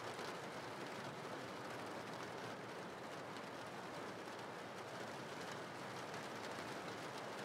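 Steady background rain: a faint, even hiss.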